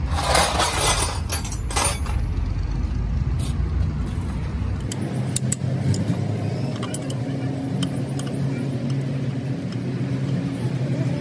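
Metal hand tools and sockets clinking against each other and a steel bowl of bolts, in short scattered clicks, over a steady low engine-like drone. A loud rushing noise fills the first two seconds.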